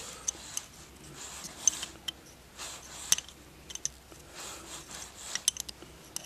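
Open-end wrench clicking and scraping on a valve tappet adjuster in a Hercules ZXB engine as the adjuster is screwed back down: scattered sharp metal-on-metal clicks, the loudest about one and a half and three seconds in, with a quick run of clicks near the end.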